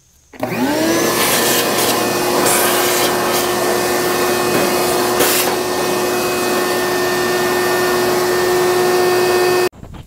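Shop-Vac wet/dry vacuum switched on, its motor rising in pitch as it spins up, then running steadily and loudly while the hose sucks dust out of the inside of a vent-free propane heater. It is switched off and cuts out suddenly near the end.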